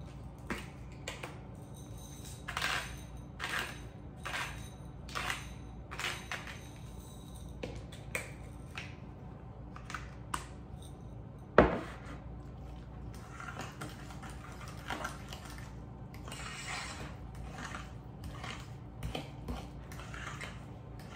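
Hand-twisted pepper mill grinding over a bowl in a series of short grinding rasps, with one sharp knock about halfway through. Near the end a utensil clicks and scrapes against the bowl as the mixture is stirred.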